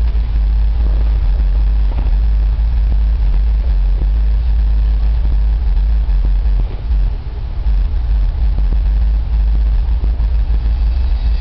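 Bass-heavy music playing through a 2004 Nissan Murano's factory Bose stereo with integrated subwoofer, heard inside the cabin and dominated by deep bass. The level dips briefly about seven seconds in.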